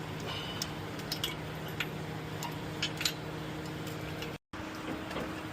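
Scattered light clicks and taps, like metal parts or tools being handled, over a steady hum; the sound cuts out for an instant near the end.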